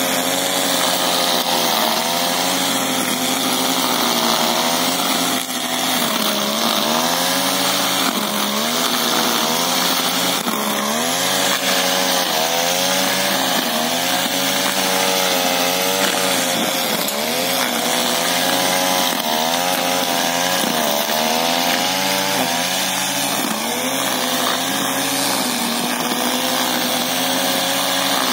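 Petrol brush cutter with a metal cutting blade running hard while cutting grass, its engine note dipping and rising again every second or two.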